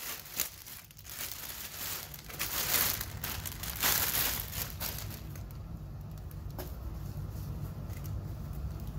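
A clear plastic poly bag crinkling and rustling in bursts as a knit sweater is pulled out of it, dying away after about five seconds.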